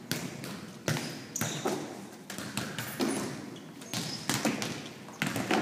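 Volleyballs being passed and players dropping to a gym floor in a diving-pass drill: a string of sharp thuds every half second to a second and a half, each ringing briefly in the hall, with a few short high squeaks.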